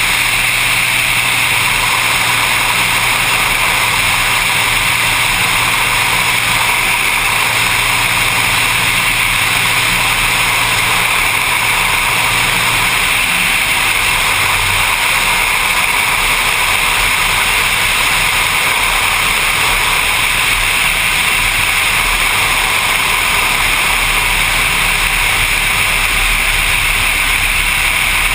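Seaplane's engine and propeller running steadily in flight, a loud even drone with no break; a low hum in it fades out about thirteen seconds in.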